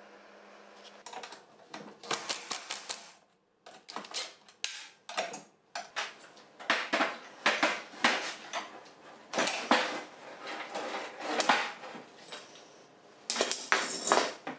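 Metal tools, bolts and frame parts clinking and knocking in quick, irregular strikes on a steel workbench as an old wheelchair frame is taken apart.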